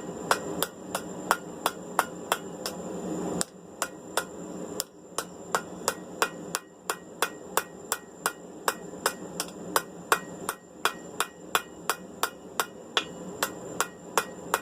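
Blacksmith's hand hammer striking hot steel on an anvil in a steady rhythm, about three blows a second, each with a short ring. This is the last stage of rounding a bar for a set of tongs: it has been taken to sixteen sides and is being hammered round.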